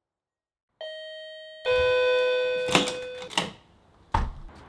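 Two-note doorbell chime: a higher note, then a lower, louder note that rings out and fades. A few knocks follow, ending in a sharp clack about four seconds in as the front door is opened.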